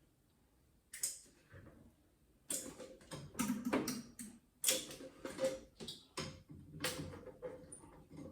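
Irregular clicks and knocks of hands working on a cistern's flush pipe fittings while sealing them with silicone. It starts quiet, then the clicks come in from about a second in and crowd together in the second half.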